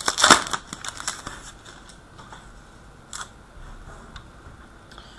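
Trading card pack wrapper crinkling as it is opened, loudest in the first half second, then scattered small clicks and rustles from the cards being handled.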